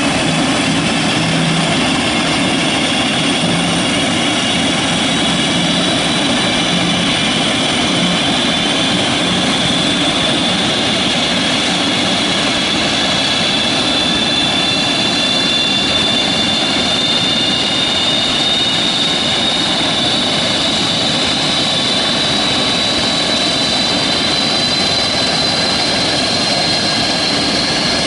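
Antonov An-22 Antei's Kuznetsov NK-12 turboprop engines running during engine start, turning their contra-rotating propellers. A loud, steady roar with a high turbine whine that slowly rises in pitch.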